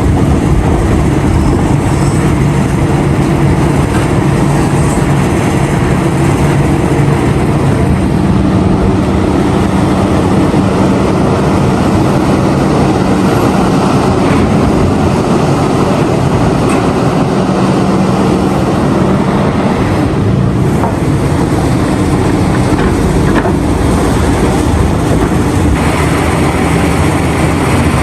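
Diesel engines of a Liebherr R974 mining excavator and its haul trucks running steadily under load, a constant low engine drone.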